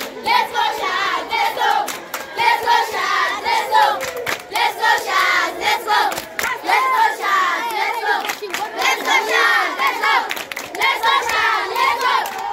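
A group of children chanting a club war cry together, with many overlapping shouted and sung voices and hand clapping.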